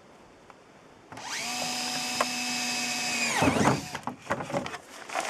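Electric drill running at a steady speed for about two seconds, then spinning down with a falling whine, followed by a few light clicks and knocks.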